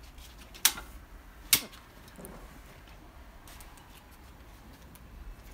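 Click-type torque wrench set to 65 Nm clicking twice, about a second apart, as cylinder head bolts reach torque, followed by a few faint ticks.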